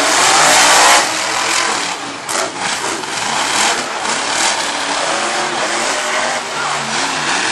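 Monster truck engine revving hard, its pitch rising and falling with the throttle, loudest in the first second.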